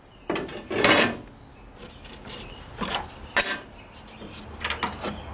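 Aluminum seat panel and hatch cut-out being handled: a scraping metal rattle lasting about a second near the start, then a few light clicks and scrapes.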